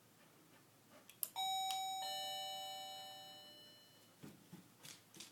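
Doorbell pressed with a click, then a two-note ding-dong chime, high note then lower note, ringing on and fading away over about two seconds: the ring that cues a hearing dog in training to go to the door. A few soft knocks follow near the end.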